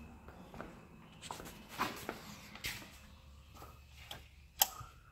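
Faint footsteps and light handling knocks and rustles, then one sharp click near the end as hands work the hoses on the engine.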